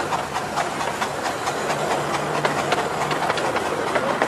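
A 15-inch-gauge steam train running, heard from an open carriage window: the coach wheels click irregularly over rail joints and points, over a steady rumble and the hiss of the locomotive's steam.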